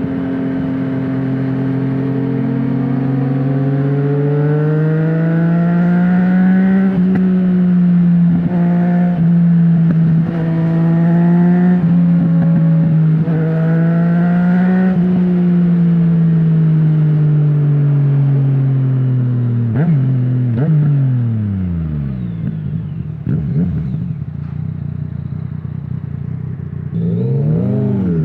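Yamaha MT-09's crossplane inline-three through an Akrapovic full exhaust with no dB killer, pulling through several quick upshifts. It then rolls off with the revs falling, with downshift blips and crackles on the overrun, and revs up again near the end.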